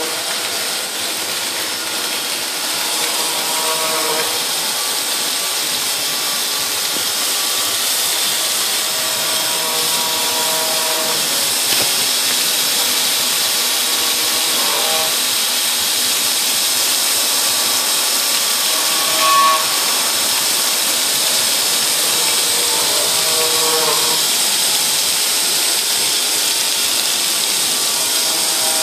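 Robot-mounted milling spindle cutting marble under a water coolant spray: a loud steady hiss and whine with several high steady tones, and faint tones that shift every few seconds as the tool moves along its path.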